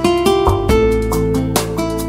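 Background music led by plucked and strummed acoustic guitar, with quick note onsets over a sustained bass line.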